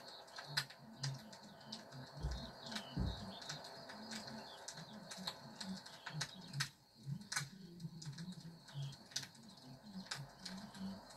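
Birds calling: short low coos repeated over and over, small high chirps, and scattered sharp clicks.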